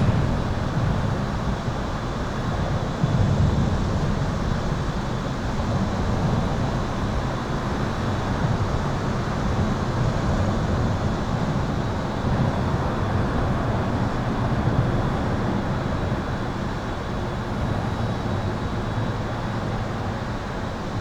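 Continuous highway traffic heard from under an overpass: a dense, rolling rumble of tyres and engines that swells briefly about three seconds in as a louder vehicle passes. A faint steady high-pitched buzz runs beneath it.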